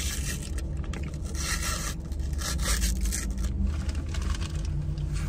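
Paper sleeve being peeled off a waffle cone, rustling and crinkling in several bursts.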